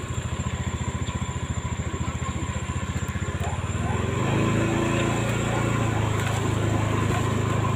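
Motorcycle engine running while being ridden over a rough dirt road, heard from on board; it gets louder about four seconds in.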